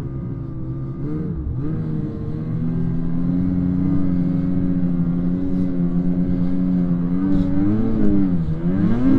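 Snowmobile engine running under throttle. Its pitch dips and climbs back briefly about a second and a half in, holds steady for several seconds, then dips and rises again near the end as the throttle is eased and opened.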